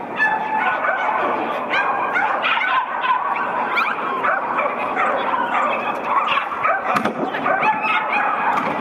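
Many dogs barking and yipping at once in a continuous, overlapping din, with no let-up.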